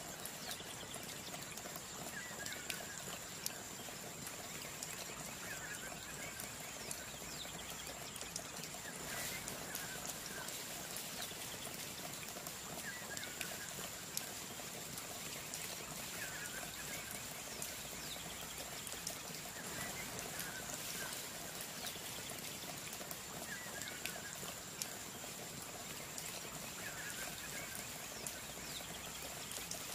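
Outdoor ambience: an even water-like hiss with a steady high whine over it, and a short chirping call that repeats about every two seconds.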